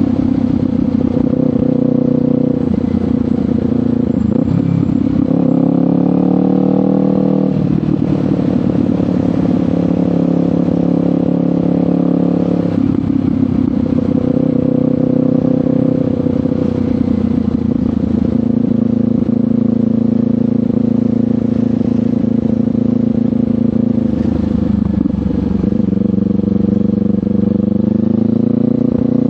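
Kawasaki Ninja 500 parallel-twin running through a LeoVince GP Corsa Evo slip-on exhaust while riding. The revs climb and then drop sharply about seven and a half seconds in, as at a gear change. The pitch shifts again about thirteen seconds in and rises once more near the end.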